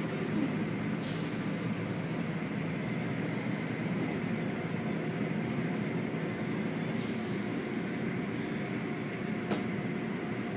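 Automatic car wash machinery heard from inside a car: a steady rush of spraying water, running motors and cloth strips, with a few brief sharp knocks scattered through.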